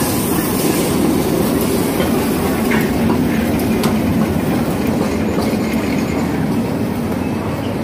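Daylight-liveried miniature park-railway train rolling along the track: a steady rumble, with the wheels clicking over the rail joints.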